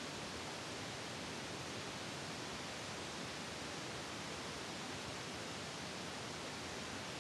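Steady, even hiss of noise with no distinct sounds in it: no commands, footsteps or rifle handling can be made out.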